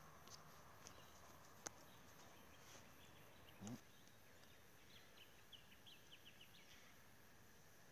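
Near silence: faint outdoor ambience, with a single tick about a second and a half in, and a quick run of faint high-pitched chirps near the end.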